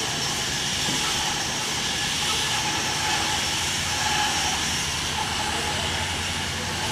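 Sawmill machinery running: a steady mechanical noise with a hiss and a low hum, with no clear cutting strokes.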